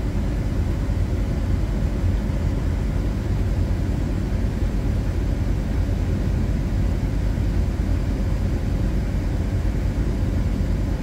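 Steady low rumble of a 2000 Chevy Express van idling with its newly recharged air conditioning running, heard from inside the cab.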